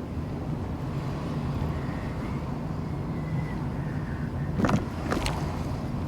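Car driving, with a steady low rumble of engine and road noise and two short knocks a little over half a second apart near the end.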